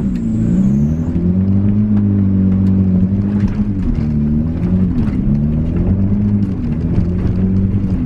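Riding lawnmower engine running hard while being driven, its revs dipping and climbing back several times as throttle and brakes are worked.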